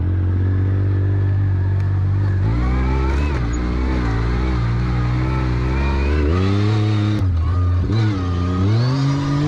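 Yamaha YXZ1000 buggy's three-cylinder engine running. Its note is steady for the first couple of seconds, then rises and falls several times as the throttle changes, with a brief dip about seven seconds in.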